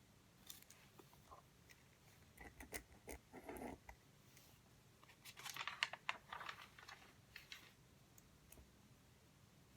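Faint handling noises at a desk: scattered small clicks and rustles in two short clusters, about two seconds in and again around five to seven seconds, over near silence.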